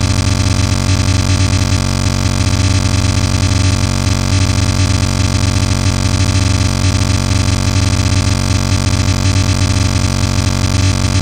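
Loud, steady electronic noise drone with a strong low hum, an intro sound effect laid under animated title graphics.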